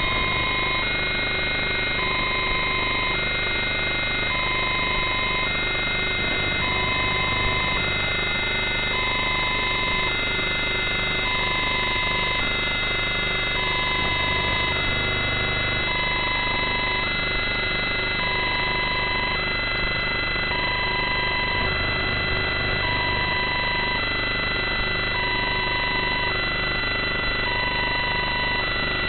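Steady electronic hiss and whine with a two-tone electronic alarm beeping over it, alternating a lower and a higher note about once a second.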